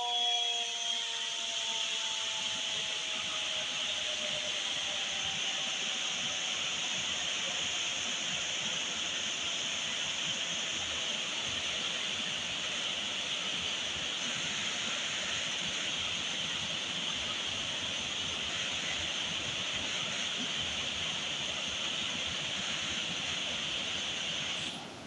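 A dam warning siren winds down, its pitch falling and fading over the first few seconds. Then comes a steady rushing hiss of water pouring through the open Rawal Dam spillway gates, which cuts off suddenly near the end.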